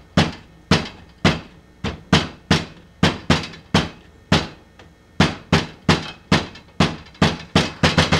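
Knocking on a door: a long run of sharp knocks, about two a second, with a short pause around four and a half seconds in.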